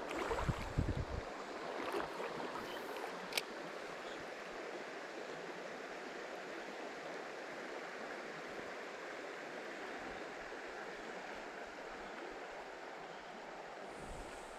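River current rushing steadily over a shallow, weedy bed. There are a few low bumps in the first second and a single sharp click about three and a half seconds in.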